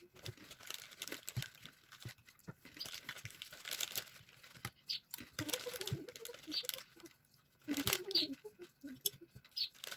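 Plastic Lego pieces being handled: crinkly rustling and many small clicks and taps as bricks are picked through and fitted, with a child's voice briefly audible twice.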